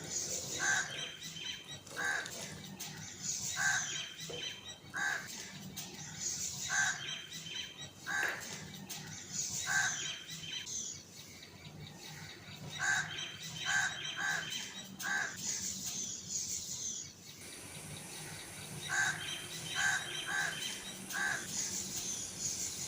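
Birds calling: short calls repeating about once a second in runs, with a couple of brief pauses.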